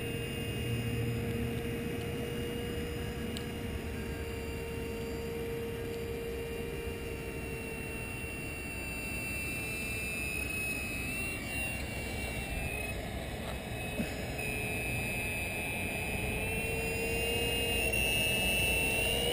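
Radio-controlled ekranoplan model's motors and propellers running with a steady whine, the pitch shifting as the throttle changes, growing louder near the end.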